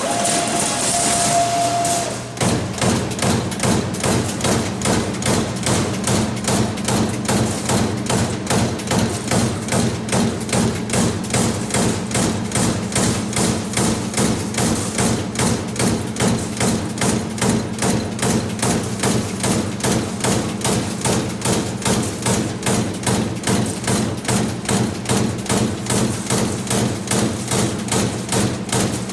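Amada Pega 357 CNC turret punch press punching a grid pattern of holes in sheet metal: a steady, rapid rhythm of punch strokes over the machine's constant hum. It opens with about two seconds of hiss and a steady tone before the punching starts.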